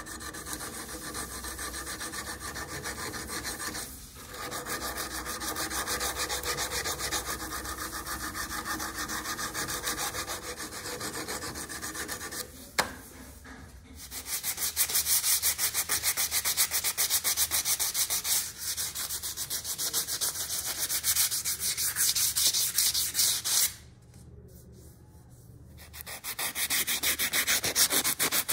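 Abrasive sanding on the steel of a vintage Wilton C-clamp: continuous fine rubbing strokes, broken by short pauses about 4, 13 and 25 seconds in, with a single sharp click near the middle.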